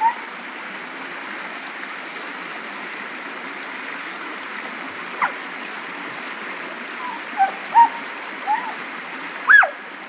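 Shallow stream rushing steadily over a rock ledge, with a dog splashing in it. A few short high-pitched sounds come through the water noise in the second half.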